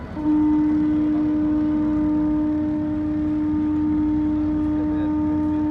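Ship's horn of the Polish full-rigged training ship Dar Młodzieży sounding one long, steady low blast as she leaves port. It starts a moment in and holds without a break.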